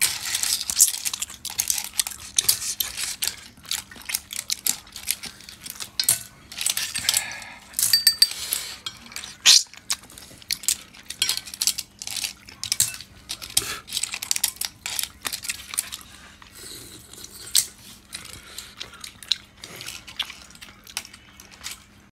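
Cooked clam shells clicking and clinking against each other and against a stainless steel bowl as chopsticks and fingers stir and pick through them. It is an irregular run of small sharp clicks, dense for most of the time and thinning out near the end.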